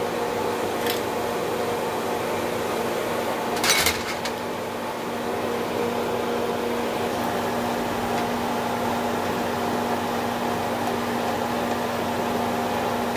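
Diced bell peppers and ham sautéing in oil and butter in a frying pan: a steady sizzle under a steady hum. A sharp knock about four seconds in.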